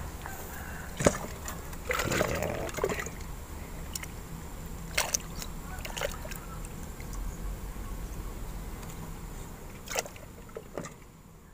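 Water sloshing and splashing briefly about two seconds in, then a few scattered clicks and knocks as a plastic bait bucket and its lid are handled.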